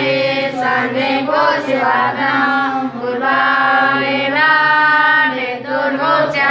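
A group of people chanting a Hindu mantra together in unison. It is a continuous sung line that moves from syllable to syllable, with short breath pauses about three seconds in and again near the end.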